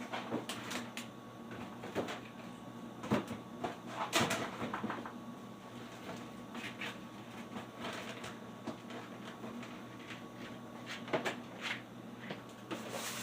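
Scattered knocks and clicks of household items and cupboards being handled while groceries are unpacked and put away, the loudest about three and four seconds in and again near the end, over a steady faint hum.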